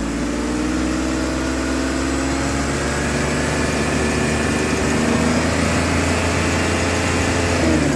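2003 Ford Explorer engine running above idle, its speed slowly climbing, then falling back right at the end. The number two misfire has been cured with a new coil; the owner blames the remaining rough running at low speed on a worn tensioner.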